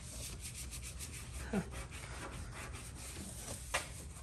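Microfiber cloth rubbed back and forth by hand on a car's painted body panel, buffing out scuffs: a soft, quick rubbing hiss, with two brief louder sounds, one about a second and a half in and one near the end.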